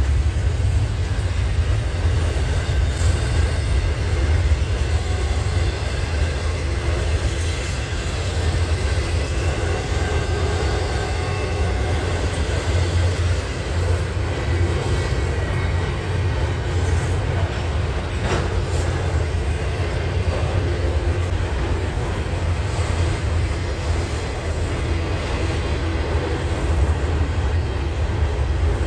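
Double-stack intermodal freight train rolling past, its well cars' wheels on the rails making a steady, even rumble, with a single sharp click about two-thirds of the way through.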